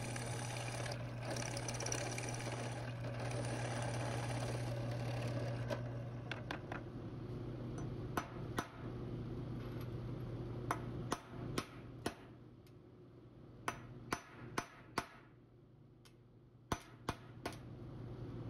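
A drill press runs and cuts into a small steel clamp block for about the first six seconds, a steady motor hum under a cutting hiss. Then a hammer taps steel dowel pins into holes in small steel stop blocks: about a dozen sharp metal taps in groups of two to four.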